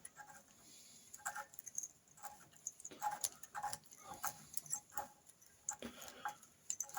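Faint, irregular light clicks and taps of metal tools and engine parts being handled while working on the primary chaincase.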